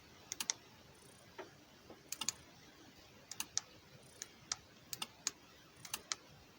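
Clicking of a 12 V 433 MHz remote relay switch and its remote's buttons as LED lights are switched on and off, about a dozen sharp clicks, mostly in close pairs.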